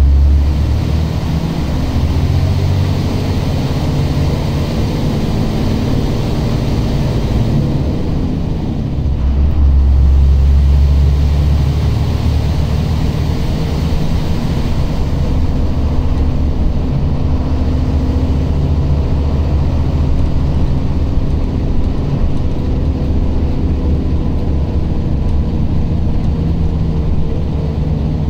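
Steady low engine and road rumble of a moving vehicle, heard from on board. The engine hum drifts slowly in pitch, and the rumble swells louder for a few seconds about a third of the way in.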